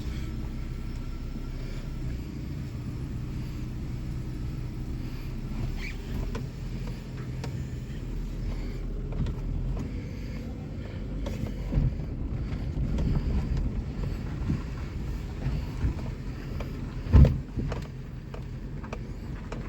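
Inside the cabin of a 1998 Suzuki Baleno, its engine running as the car idles and then drives off. A steady low rumble is broken by a few knocks and one loud thump about 17 seconds in.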